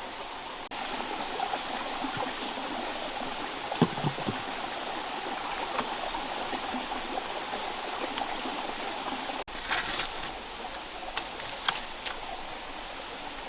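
Steady rushing of flowing water, with a few light knocks and clicks.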